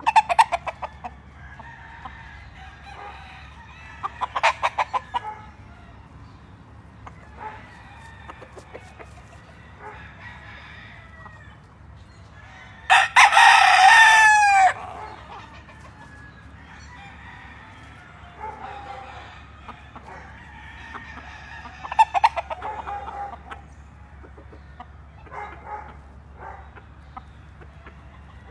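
Gamefowl roosters calling: one long, loud crow about halfway through that falls in pitch at its end, with several shorter bursts of rapid calls near the start, a few seconds in and again past twenty seconds.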